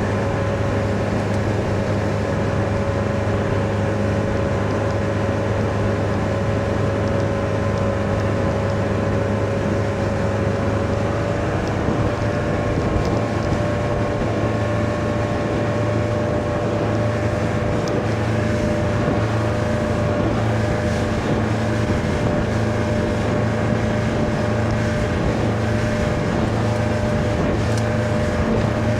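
Mercruiser 120 four-cylinder sterndrive engine running steadily with the boat underway at part throttle, with wind on the microphone. The engine note rises slightly about a third of the way in.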